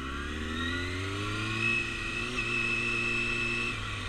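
Motorcycle engine accelerating: the revs climb steadily for about two seconds, hold level, then drop off near the end as the throttle eases.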